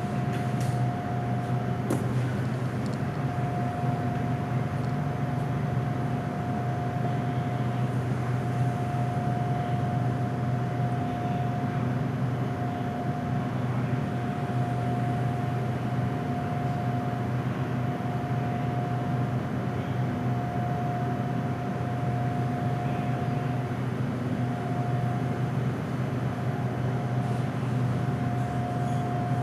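Running noise of an SRT Red Line electric commuter train (Hitachi AT100 unit) heard from on board: a steady low hum under a steady high whine, with rolling noise throughout.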